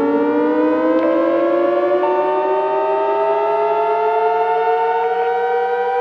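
Civil defense siren wailing, with several tones sounding together and slowly rising in pitch, used as an emergency alert alarm.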